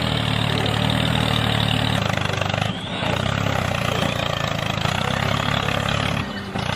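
An engine running steadily, with brief dips about three seconds in and again near the end.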